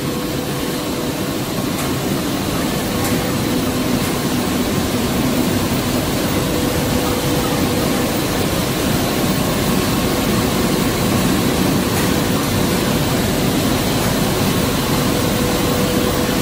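Multi-colour rotogravure printing press running in production: a loud, even machine noise with a constant hum underneath.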